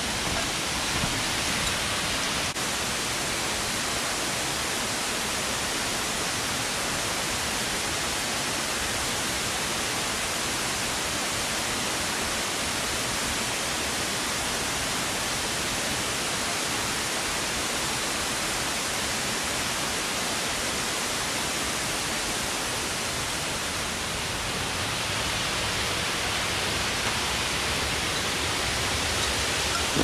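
Steady rush of a mountain stream's water cascading over rocks and small falls, getting a little louder near the end.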